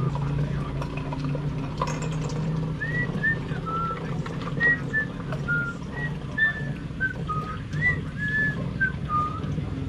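A person whistling a tune in short notes of changing pitch, starting about three seconds in, over a steady low hum.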